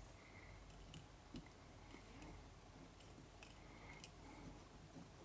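Near silence, with a few faint, scattered clicks and ticks from hands handling the tying materials as black wool is wound onto a tube fly.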